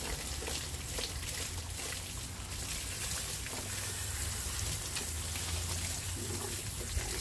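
Water from a garden hose running over a wet dog's coat and splashing into a plastic tub, a steady trickle.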